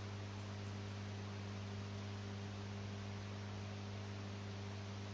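Steady low electrical hum with a faint hiss underneath.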